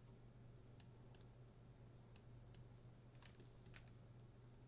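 Faint, scattered clicks of a computer mouse button, about seven in all, over a low steady hum.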